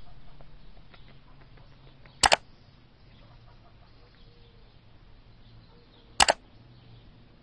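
Two sharp double clicks, about four seconds apart, over a faint low hum.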